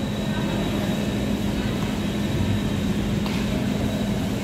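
Steady ambience of an indoor sports hall: a constant low hum under an even background rumble, with no distinct event.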